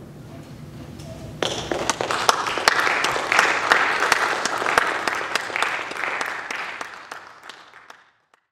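Audience applause for a concert band, breaking out suddenly about a second and a half in and fading away near the end.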